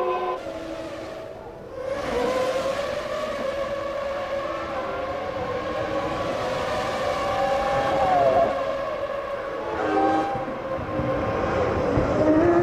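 1996 Formula One car engines running at high revs, a shrill held pitch with short glides as the revs change, climbing again near the end as a car accelerates.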